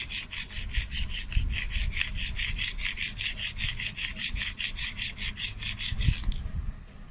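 Rapid rhythmic scraping or rasping, about six strokes a second, which stops abruptly about six seconds in.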